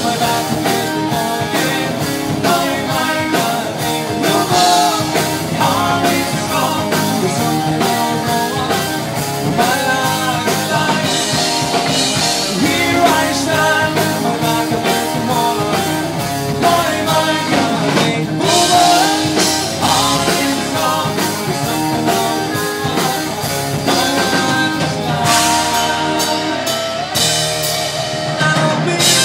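Celtic rock band playing live: electric guitar and bass guitar over a steady beat, with a sung vocal.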